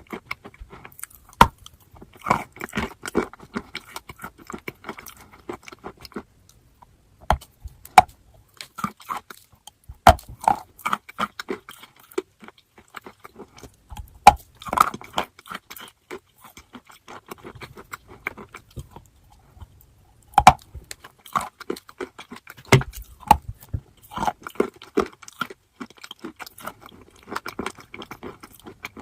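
Someone biting into and chewing crunchy chalk: sharp snaps followed by runs of crunching, with short pauses between bites.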